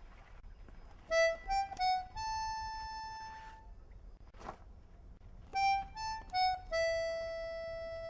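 Harmonica playing a slow melody in two short phrases, each a few quick notes ending on a long held note, with a brief breathy whoosh between them.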